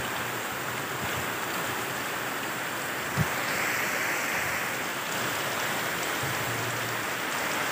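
Heavy rain pouring down steadily, a dense even hiss. One short thump about three seconds in.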